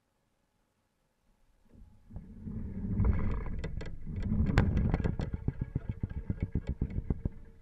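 Plastic kayak hull being bumped and handled, heard through a camera fixed to its deck: a low rumble with a quick run of knocks and clicks, loudest about three and four and a half seconds in.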